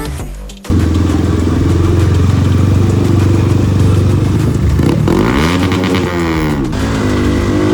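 Motorcycle engine running under way, its pitch rising and then falling again about five to seven seconds in as the rider opens and eases the throttle. Music fades out in the first moment.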